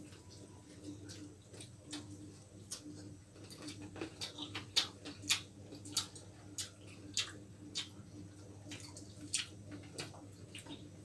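Eating sounds of two people eating chilli chicken and roti by hand: irregular sharp mouth clicks and smacks of chewing, and fingers picking at the food, thickest about four to six seconds in. A low steady hum runs underneath.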